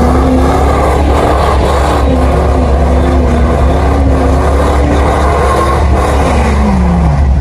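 Truck engine revved up and held at high revs with slight wavering, then dropping back down near the end, over a steady low rumble.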